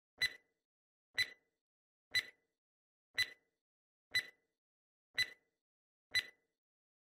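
Ticking sound effect of an on-screen quiz countdown timer: one short, sharp click each second, seven in all, counting down the seconds left to answer.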